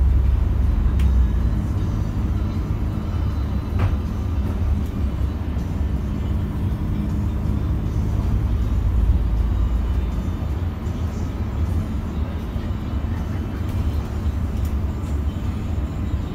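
Inside a Solaris Urbino 15 city bus while it drives: a steady engine and road-noise drone, with a couple of light clicks from the cabin.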